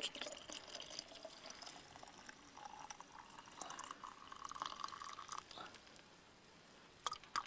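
Hot water poured from a cooker into a wide-mouth Nalgene bottle, the filling note rising in pitch for about three seconds and stopping about five and a half seconds in.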